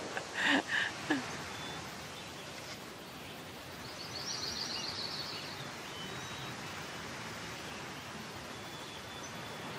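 Outdoor garden ambience with a steady hiss and a few faint short bird whistles; about four seconds in, a bird gives a quick trill of rapid high notes lasting about a second and a half.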